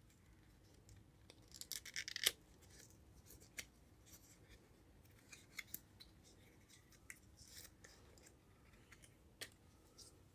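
Small paperboard carton of Maggi chicken stock cubes being opened by hand: a burst of cardboard rustling and scraping about two seconds in, then scattered faint clicks and rustles as the box and its foil-wrapped cubes are handled.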